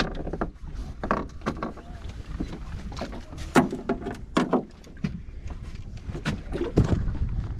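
Irregular knocks and clatter of fishing gear being handled in a small boat, over a steady low rumble, as a landed fish is unhooked and the lure readied for another cast.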